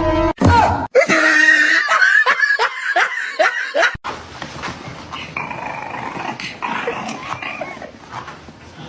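A dog yipping in a quick series of short, high, falling cries, about three a second. After an abrupt cut about four seconds in, a dog whines more quietly.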